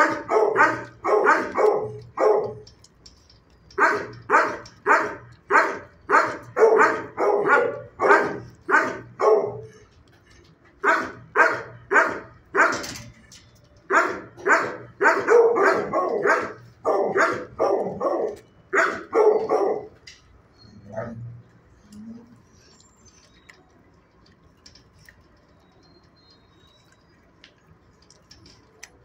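Kennelled shelter dog barking in runs of quick barks, about two a second, with short pauses between runs; the barking dies out about two-thirds of the way through.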